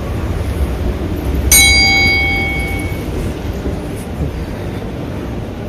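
A single struck bell ding, a notification-bell sound effect for a subscribe graphic, ringing out and fading over about a second and a half, over a steady low rumble.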